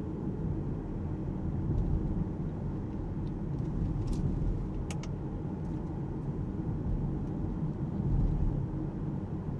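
Alpine A390 electric car driving in town: a steady low rumble of tyre and road noise with no engine sound. A few short clicks come about halfway through.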